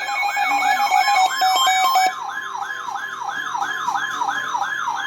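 Electronic siren sounding a fast repeating falling whoop, about four sweeps a second. Steady alarm tones are layered over it for the first two seconds.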